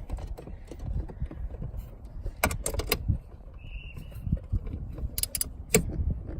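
Hand ratchet with an 8 mm socket loosening a screw: scattered sharp clicks and knocks over low rumbling handling noise, with a brief faint squeak midway.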